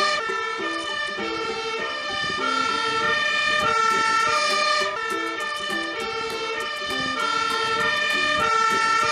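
Fire engine siren sounding a two-tone hi-lo pattern, jumping between fixed pitches every half second or so, from a Magirus aerial ladder fire truck driving off.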